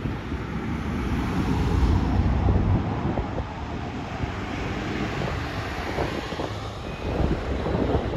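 Street traffic: a car driving past, its engine and tyre noise swelling to a peak about two seconds in, with another rise near the end.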